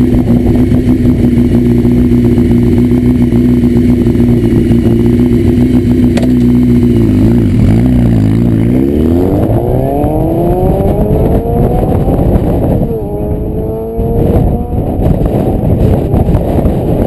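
Honda CBR900RR Fireblade inline-four through a Devil aftermarket exhaust, held at steady revs for several seconds. The note then dips and climbs steeply as the bike accelerates hard, breaks briefly at a gear change about 13 seconds in, and rises again.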